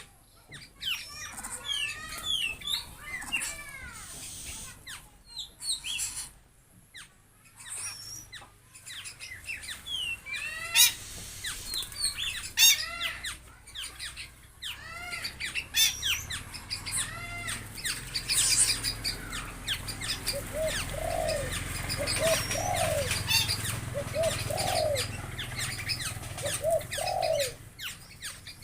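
Birds calling: many quick, high chirps throughout, and in the second half a series of short, low hooting calls about a second apart. A low rumble runs under the second half.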